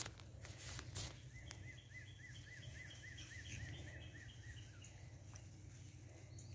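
A bird singing faintly: a run of about a dozen quick, evenly repeated up-and-down notes, roughly four a second, lasting about three seconds. A couple of short rustles or knocks come in the first second.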